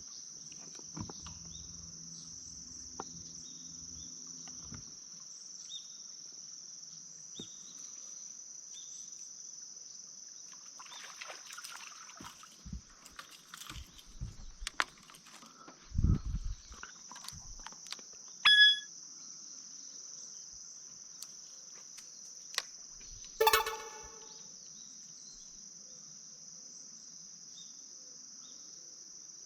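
A steady, high-pitched chorus of autumn insects runs throughout. Scattered knocks and clunks sound over it, with a loud low thump about halfway through and two short, sharp sounds a few seconds later.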